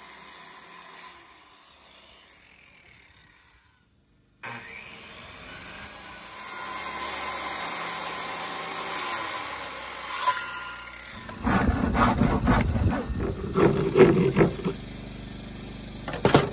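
Old Black & Decker corded circular saw cutting along a sheet of OSB. It becomes louder and rougher for a few seconds near the end.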